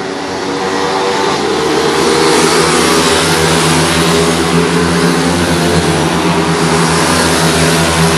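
A pack of stock pit bikes racing, their small four-stroke single-cylinder engines at high revs. The sound grows louder over the first two seconds as the bikes come closer, then holds steady.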